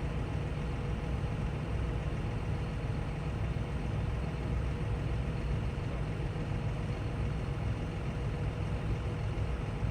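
A tractor engine running steadily: an even low drone with a faint steady hum above it.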